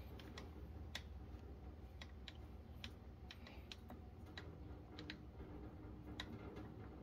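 Faint, irregular light metal clicks and taps as a machine vise is nudged into position on a small milling machine's table, over a low steady hum.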